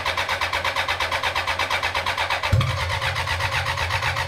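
BMW K100 1000cc inline-four motorcycle engine cranking on its starter in an even, fast chug, sputtering as it tries to fire, with one louder cough about two and a half seconds in. It has no fuel system yet and runs only on a spray of flammable fluid, so it sputters without catching; the sputter shows the ignition wiring is right.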